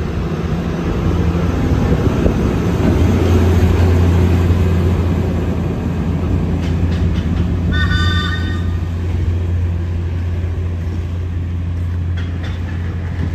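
NER electric railcar 3170 pulling away with a steady low drone, and a short horn toot about eight seconds in.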